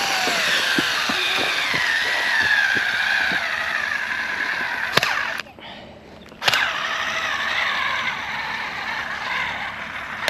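Small cordless drill driving deck screws into a wooden post in two long spells with a short pause between. Its motor whine falls slowly in pitch as each screw goes in under load.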